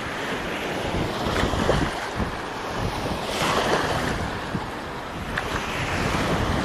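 Water splashing and sloshing, with wind buffeting the microphone; a louder rush of water comes about three and a half seconds in.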